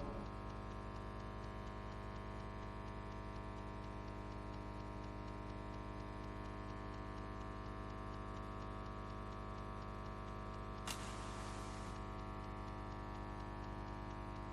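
Steady electrical hum with many overtones, from the sound or recording system, with a brief burst of hiss about eleven seconds in.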